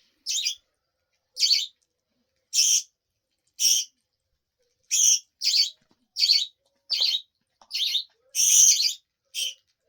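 Small pet parrot giving short, high chirps over and over, about eleven in all. They come roughly once a second at first and closer together in the second half.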